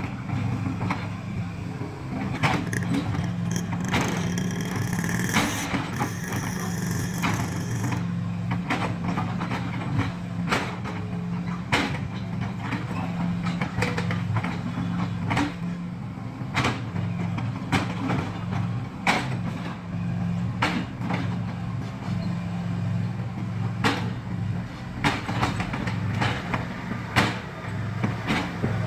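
Excavator's diesel engine running steadily, with frequent sharp knocks and clanks over it.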